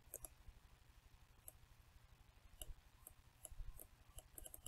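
Faint, scattered clicks of a computer mouse, with a quick run of several clicks near the end, over a low steady hum.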